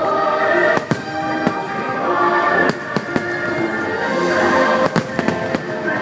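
Aerial fireworks shells bursting in a string of sharp bangs, several in quick succession near the end, over loud show music with held choral tones.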